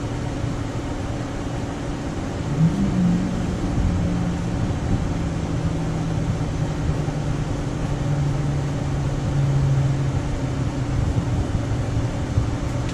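Steady fan hum and low rumble. A lower engine-like drone comes in about two and a half seconds in and slowly falls in pitch, fading out around ten seconds in.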